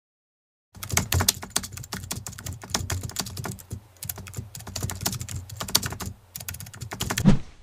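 Typing sound effect: a rapid, uneven run of key clicks that starts about a second in and stops just before the end, with a heavier key strike near the end.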